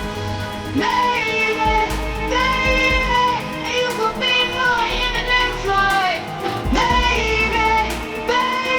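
Background pop song with a sung vocal over guitar and a steady bass beat.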